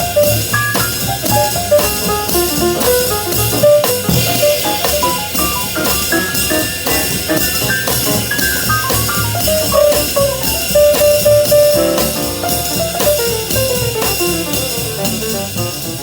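Live small-group jazz: a drum kit keeps a steady beat under a fast melodic solo line made of quick runs of notes, some falling, with a horn among the instruments.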